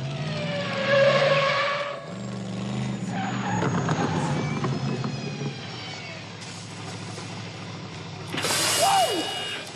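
The DeLorean time machine's engine running as the car drives up, with tyres screeching: once in the first two seconds and again near the end with a falling squeal as it brakes.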